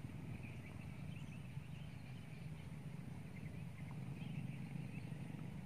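Faint outdoor marsh ambience: a low steady hum with small scattered chirps higher up.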